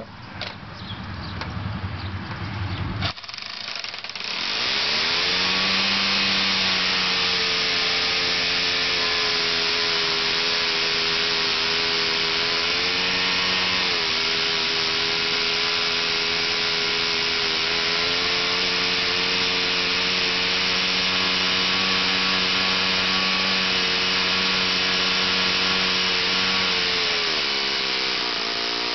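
RCV 60 rotating-cylinder four-stroke glow model engine, fitted with a Perry carburetor and swinging a 14x9 propeller, fires about four seconds in and settles into a steady, high-speed run. It dips briefly once midway, and near the end its pitch drops.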